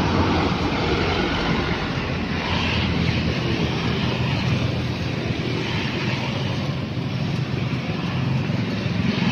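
Steady roadside traffic: passing trucks and motorbikes running by with their engine hum and tyre noise.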